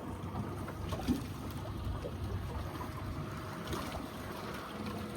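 Water sloshing and trickling around a small fishing boat at sea, over a steady low rumble, with a few faint knocks.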